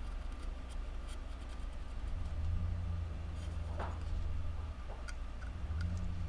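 Utility knife blade carving small chips along the edge of a wooden lure body, giving faint, scattered scratchy cuts and scrapes. A low hum comes in about two seconds in.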